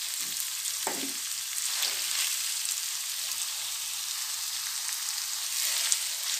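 Sliced onions sizzling in hot oil in a kadai, stirred with a perforated steel ladle: a steady frying hiss as the onions sauté toward golden brown.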